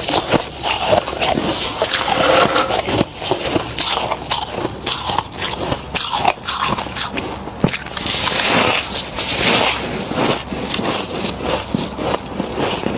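A person biting into and chewing thick freezer frost, with a dense, irregular run of crunching and crackling that thickens into a hissy grinding crunch about two-thirds of the way through.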